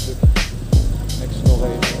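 Background music with a steady beat: deep kick drums that drop in pitch and a sharp snare, over held synth notes.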